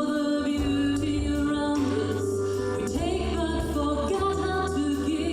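Christmas song performed on stage: singing with several voices over an instrumental accompaniment, with held notes and a steady bass.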